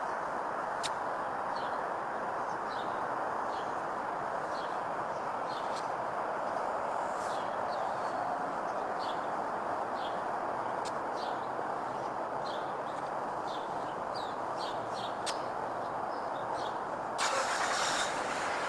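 A steady distant roar, like far-off road traffic, with small birds chirping now and then; a louder hiss sets in near the end.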